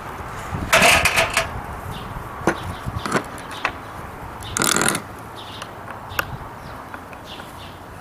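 A galvanized metal tub and a wooden birdhouse being shifted about on a tiled tabletop. There is a scrape about a second in and another near five seconds, with scattered knocks and clicks between them.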